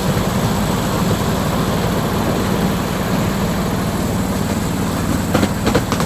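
Small diesel-engined miniature railway train running with a steady low rumble, with a few short clacks from the wheels near the end.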